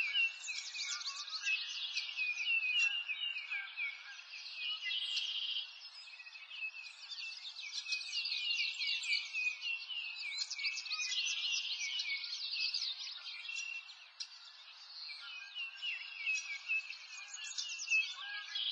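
Dense chorus of small songbirds chirping and twittering, many quick falling chirps overlapping, over a faint hiss. It eases off briefly about six and again about fourteen seconds in.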